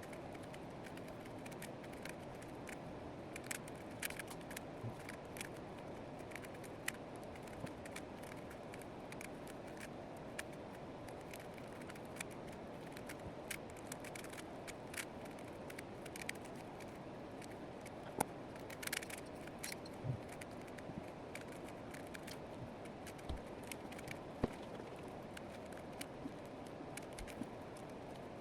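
Faint, irregular clicks and scrapes of a plastic 4x4 Rubik's cube being turned, over a steady low hiss.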